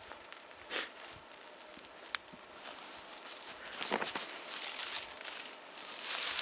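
A small fire of bark kindling crackling, with sharp pops and bursts of crinkling and rustling of dry bark, louder from about four seconds in and again near the end.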